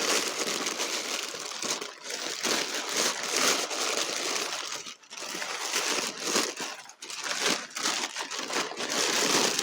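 Packing paper crumpling and rustling as it is pulled out of a box to unwrap packed crystals. The rustling is continuous with brief pauses about two, five and seven seconds in.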